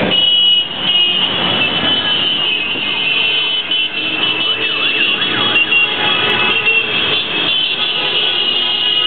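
Engines of a large group of motorcycles riding past in a column, a steady mixed drone of many bikes. About halfway through, a brief up-and-down warbling tone sounds over it.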